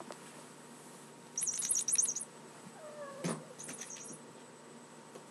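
A kitten playing with a small toy mouse: two quick runs of very high, rapid rattling pulses, a faint short meow in between, and a single knock.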